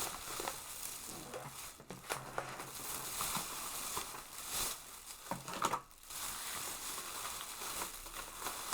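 Plastic bags and takeout containers rustling and crinkling as food is unpacked, with scattered clicks and a few louder crinkles.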